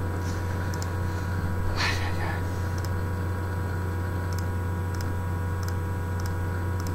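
Steady low electrical hum with a faint buzz of steady higher tones underneath. About two seconds in comes one short breath-like rush, and a few faint high ticks are scattered through.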